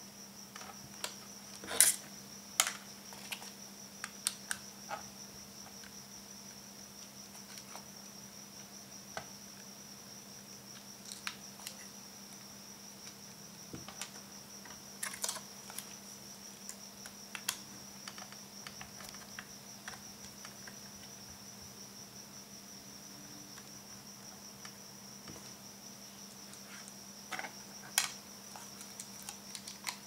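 Small screwdriver and metal laptop hard-drive bracket being handled: scattered light clicks and taps as screws are turned out of the bracket, a few sharper clicks among them, over a steady faint high whine.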